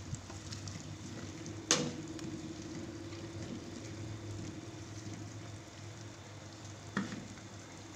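Vegetable soup simmering in a steel pot while a ladle stirs it, over a steady low hum. The ladle knocks sharply against the pot about two seconds in, and more lightly near the end.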